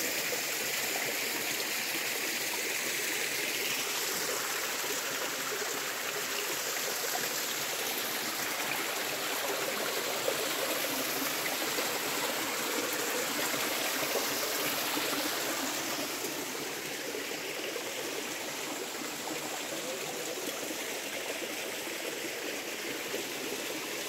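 Spring water trickling and running over rocks in a small stream, a steady rushing that eases slightly about two-thirds of the way through.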